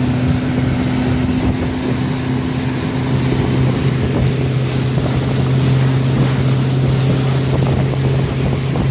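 Mercury outboard motor pushing a small boat at speed: a steady engine drone with the rush of the wake and wind buffeting the microphone.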